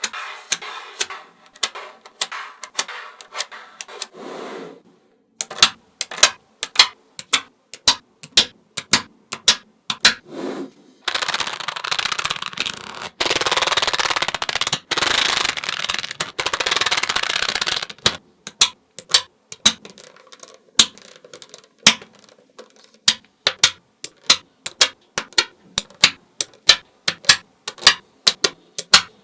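Small magnetic balls snapping together one by one with sharp clicks, about one or two a second. In the middle stretch a longer run of continuous rattling as many balls are rolled and shuffled together.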